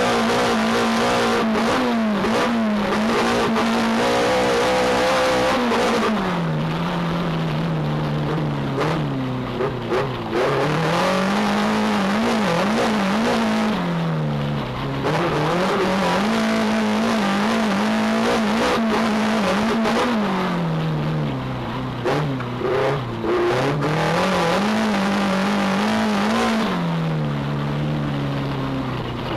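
Race car engine heard from inside the cockpit, running hard under load on a dirt track; the revs repeatedly fall away as the driver lifts off or changes gear and then climb back up.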